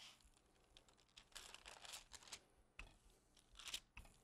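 Faint rustling and crinkling of a paper sheet under a wooden rolling pin as it rolls out a ground-chicken mixture, in a few short scraping bursts.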